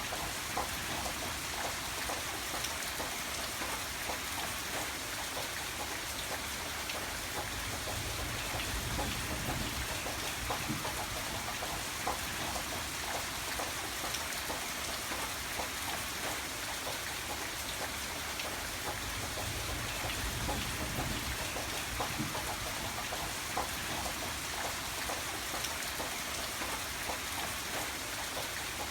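Steady rain falling on a surface, a dense even patter of drops with a low background rumble.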